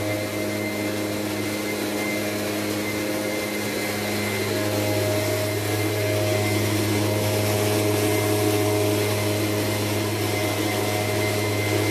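A steady machine drone: a motor running continuously with a strong low hum and a few fixed higher-pitched tones over a hiss.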